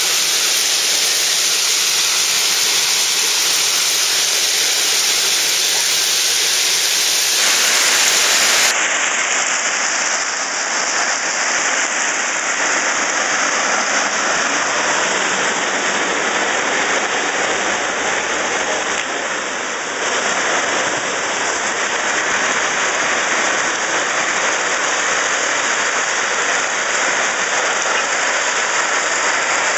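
Crushed-rock railroad ballast rushing and rattling as a hydraulic ballast plow blade under a rolling railcar drags through it and spreads it along the track. The sound is a steady, even rush of stones with no distinct knocks.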